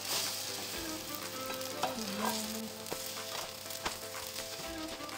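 Egg-soaked bread slices sizzling as they fry in butter in a pan, with repeated clicks and scrapes of a spatula turning them over.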